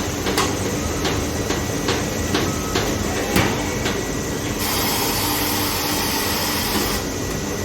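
Tyre-shop work sounds while a motorcycle wheel is being balanced: a run of sharp clicks or knocks about two a second over a steady mechanical hum, then a steady hiss lasting a couple of seconds about halfway through.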